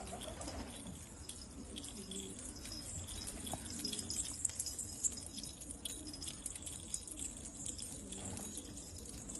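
Domestic pigeons cooing softly, with small scattered clicks and scrapes.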